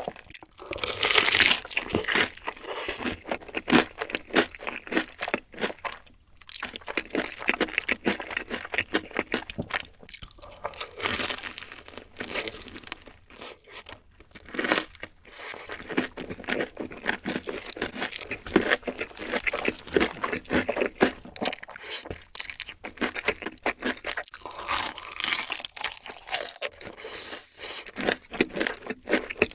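Close-miked eating of crunchy fried food: bites crackling and chewing, in repeated bursts with short pauses between them.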